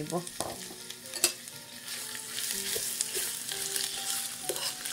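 Sliced onions sizzling in hot oil in a stainless steel pan while a metal spoon stirs them, clicking and scraping against the pan. The sizzle grows louder about two seconds in.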